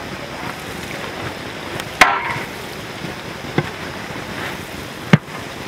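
Sliced onions frying in oil and ghee in a large metal pot, a steady sizzle, as a long metal ladle stirs them. The ladle knocks sharply against the pot three times, about two, three and a half and five seconds in; the first knock is the loudest and rings briefly.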